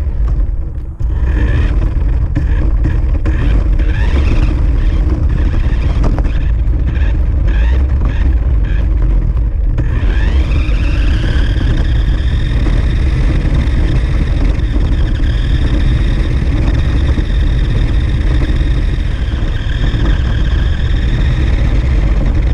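Remote-controlled car's motor and drivetrain whining over a heavy rumble of tyres and body vibration on pavement, heard from a camera riding on the car. For the first ten seconds the whine rises and falls repeatedly as the car speeds up and eases off, then it holds a steady high pitch as the car runs at speed.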